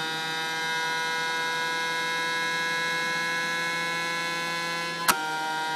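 Steady electric motor hum with a high whine, from a homemade pitching machine with a PVC-pipe ball feeder. A sharp click comes about five seconds in, after which the tone shifts slightly.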